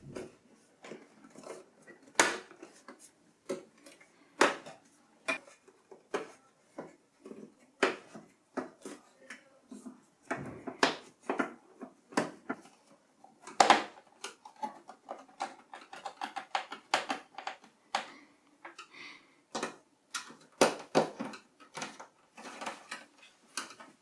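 Irregular clicks and knocks of metal parts inside an Apple Mac Pro case being handled and seated, with a screwdriver working screws as the memory cage is fixed down. A few knocks stand out louder among the lighter clicks.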